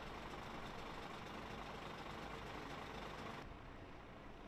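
Steady rumble and hiss of distant road traffic. The higher part of the sound drops away suddenly about three and a half seconds in.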